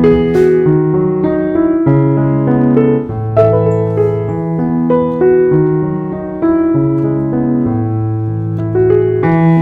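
Background piano music: a calm melody of sustained notes over a bass line that changes about once a second.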